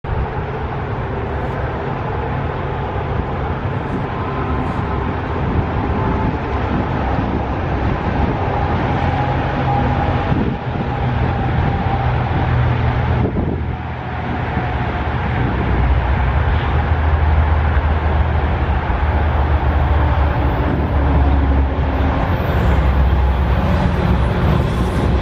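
Diesel engines of two BNSF freight locomotives approaching, their low rumble growing louder in the second half, over steady road traffic noise.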